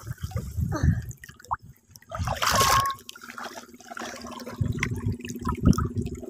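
Shallow muddy water splashing and sloshing in irregular bursts as someone wades through it. A low steady hum comes in about halfway.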